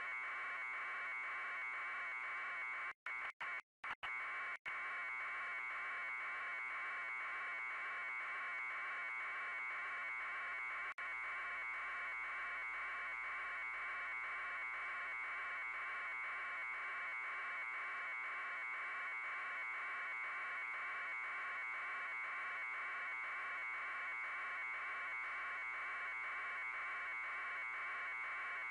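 Steady buzzing hiss with a faint fast flutter. It cuts out briefly a few times between about three and four and a half seconds in, and once again around eleven seconds.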